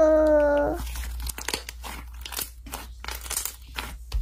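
Thick yellow slime being squeezed and kneaded by hands, making a dense run of small crackling, popping clicks.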